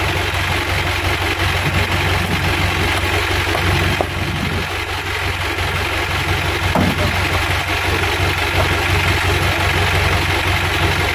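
Truck engine idling steadily.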